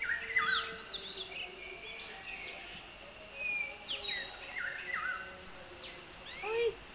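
Several birds calling at once: short whistled notes and chirps that sweep up and down and overlap, over a steady high insect drone. A louder burst of calls comes near the end.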